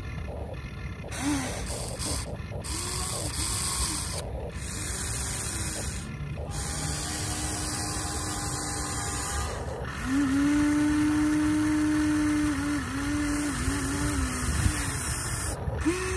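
Electric motors and gearboxes of radio-controlled model excavators, including a Huina 1593, whining as the boom, arm and bucket move. The whine rises and falls in short strokes, with a longer, louder steady whine about ten seconds in, over a constant hiss.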